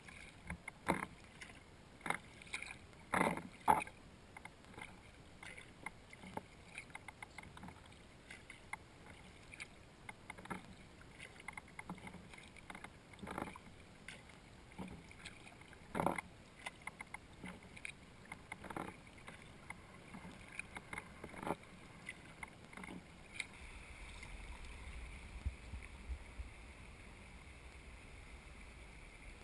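Kayak paddle strokes dipping and splashing in the river at an irregular pace, a second or two apart, over quiet flowing water. Near the end a steady rush of faster water sets in as the kayak enters a riffle.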